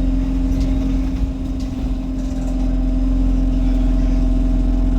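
Inside a moving bus: engine rumble under a loud steady droning tone that holds one pitch, the bus's odd noise. The sound eases off about a second in and builds back up, as the engine pulls again.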